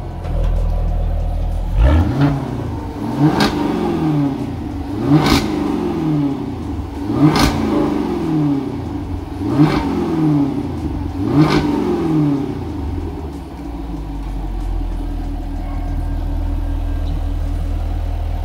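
Jaguar F-Type sports car engine blipped six times from idle, each rev rising and falling with a sharp crack at its top, then settling back to a steady idle.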